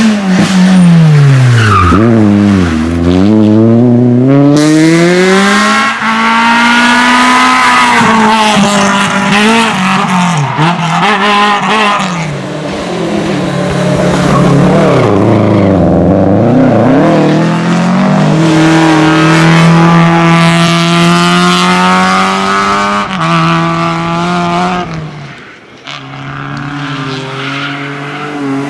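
Rally car engine driven hard, its pitch repeatedly dropping and climbing as it brakes and accelerates through the gears, with some tyre squeal and skidding.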